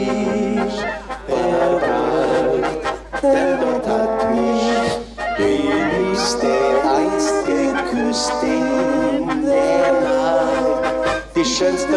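Brass band music: trumpets and trombones playing a melody in sustained phrases, with short breaks between phrases.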